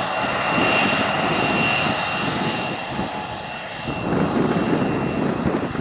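Twin rear-mounted turbofan engines of a Bombardier CRJ900 regional jet running at taxi power: a steady rumble with a thin high whine that fades out about halfway through.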